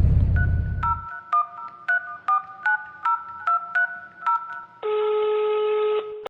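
Telephone keypad dialing tones: about a dozen quick two-tone beeps, each starting with a click, followed by a steady tone about a second long that cuts off abruptly. A low vehicle rumble fades out in the first second.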